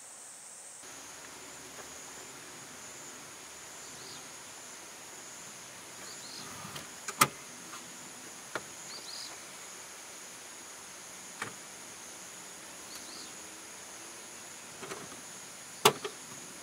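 Steady high chirring of insects, broken by a few sharp clunks and clicks of car seat latches and seat backs as a Suzuki Hustler's seats are moved and folded. The two loudest clunks come about seven seconds in and near the end.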